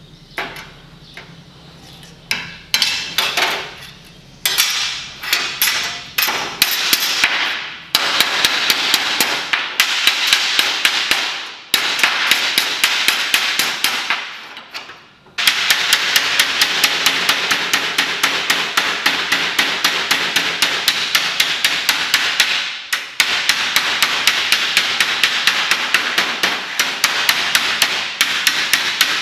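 Body hammer beating a strip of sheet steel against a hand-held steel dolly, shaping the piece. It starts as scattered blows and turns into long runs of rapid, evenly spaced strikes, about three a second, with the metal ringing between them. There are two short breaks partway through.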